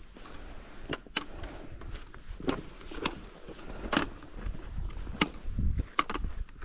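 Footsteps and trekking-pole tips tapping and scraping on a rocky, gravelly mountain path: uneven sharp clicks about once a second, over a low rumble.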